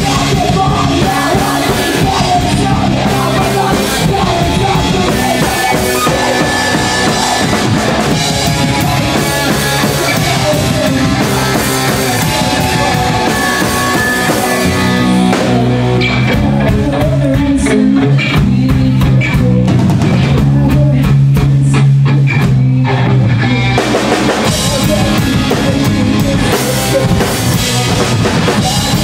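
Loud live rock trio playing: distorted Fender electric guitar, electric bass and a Ludwig drum kit with heavy cymbal work. From about halfway to near the end the low notes are held steady for several seconds under the cymbals.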